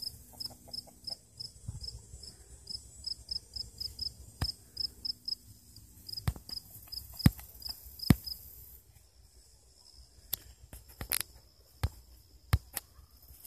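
An insect, cricket-like, chirping at one high pitch several times a second, then settling into a steadier trill in the second half. Sharp clicks or knocks are scattered through, the loudest two just past the middle.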